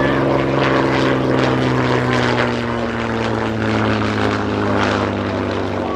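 Rolls-Royce Kestrel supercharged V12 piston engine and propeller of a Hawker Fury I biplane flying past, running steadily with its pitch slowly falling as it goes by.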